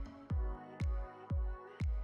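Background electronic dance music: a steady kick drum about twice a second under held synth chords.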